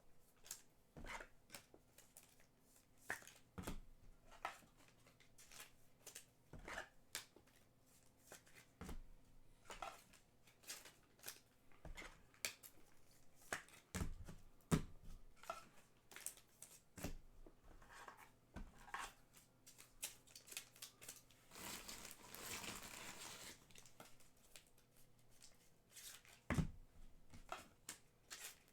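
Trading cards being slid into soft plastic sleeves and handled on a table: soft scattered clicks, taps and plastic rustles, with a longer crinkling rustle about three-quarters of the way through.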